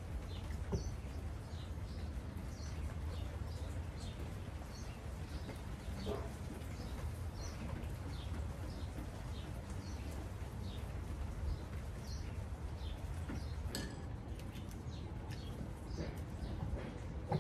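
Small birds chirping, short high calls repeating every half second or so, over a steady low outdoor rumble, with a soft knock or two near the end.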